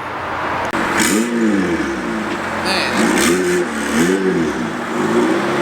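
A car engine being revved in several short blips, its pitch climbing and falling back each time.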